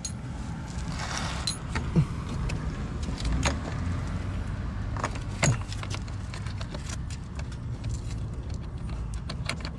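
Small metal clicks and taps of a washer and fastener being worked by hand into an SUV's underbody panel, a few sharp clicks spread through and a run of light ticks near the end, over a steady low rumble.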